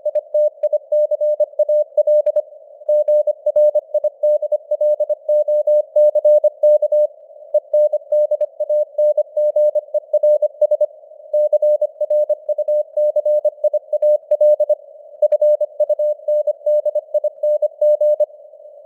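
Morse code (CW) at 25 words per minute: a single mid-pitched tone keyed in rapid dots and dashes with short pauses between words. It sits in a narrow band of simulated radio static, and the signal strength fades up and down (QSB).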